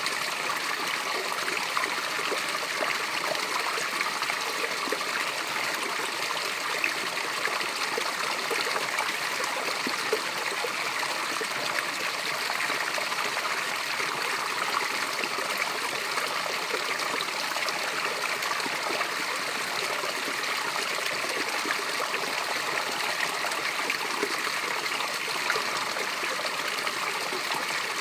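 Small waterfall: water falling and running in a steady, unbroken rush with fine splashing, light and bright with little deep rumble.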